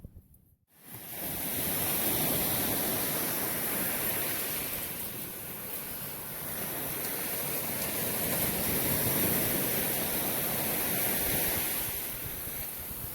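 Ocean surf washing in steadily, swelling and easing, with wind noise on the microphone; it starts about a second in after a moment of silence.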